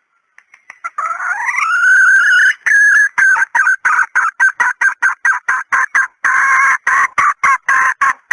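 Female red junglefowl (hen) calling, the kind of call used as a decoy to lure junglefowl. It opens about a second in with a note rising in pitch, then breaks into a fast run of short clucks at about four a second.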